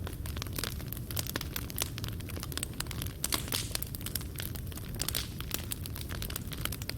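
Fireplace fire crackling: burning coals pop and snap irregularly, many times a second, over a low steady rumble.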